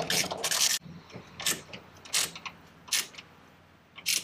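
Ratcheting box-end wrench clicking rapidly as a bolt is turned. The clicking stops abruptly under a second in, followed by a few separate clicks and knocks about a second apart.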